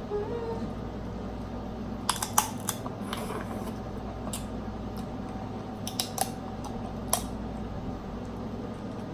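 Snow crab shell being cracked and picked apart by hand: a cluster of sharp cracks and clicks about two seconds in, then scattered ones around six and seven seconds.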